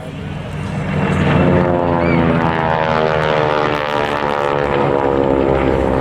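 Radial-engined propeller trainer aircraft flying past, its engine note falling steadily in pitch as it goes by.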